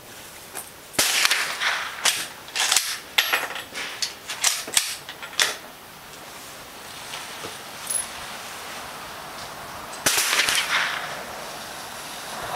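Two Kar98k 8mm Mauser bolt-action rifle shots about nine seconds apart, each ending in a decaying echo. A run of short, sharp clacks follows for a few seconds after the first shot.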